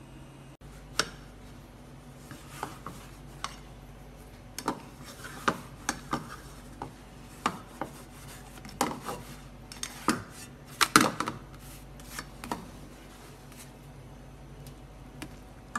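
Irregular clinks and taps of utensils against a frying pan, a dozen or so scattered strikes with a cluster of the loudest about two-thirds of the way through, over a steady low hum.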